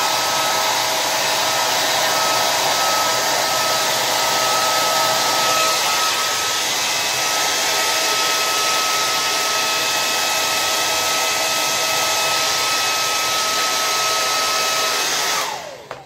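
Conair hand-held hair dryer running steadily, a rushing blow with a high whine. Near the end it is switched off and the whine falls away as the motor spins down.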